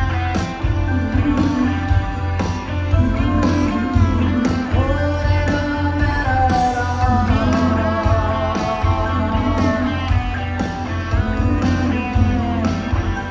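Live rock band playing: a woman singing lead over electric guitars, bass and drums.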